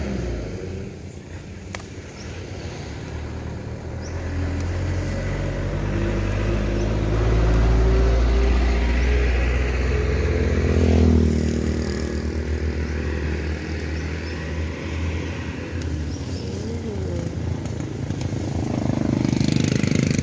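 A motor vehicle's engine passes by. It grows louder over several seconds, is loudest about halfway through, then drops back and runs on at a lower level.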